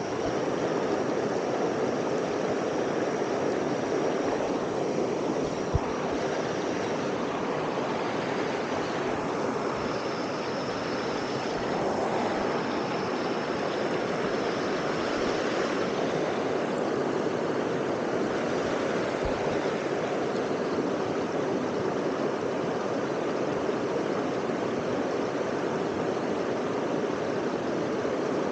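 Steady rushing of a waterfall and its stream, an even, unbroken wash of water noise.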